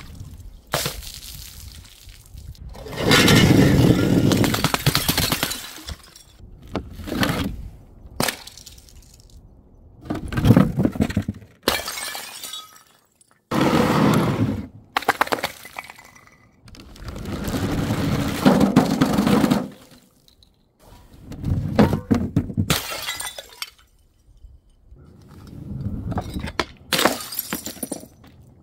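Glass bottles shattering one after another: about ten separate breaks, some short and sharp, others running on for a couple of seconds as crunching glass.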